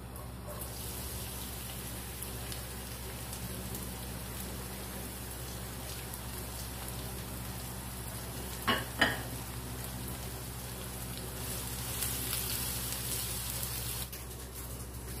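Sliced onions sizzling in hot oil in a non-stick kadai, a steady frying hiss that grows somewhat stronger near the end. Two sharp knocks come a little under nine seconds in.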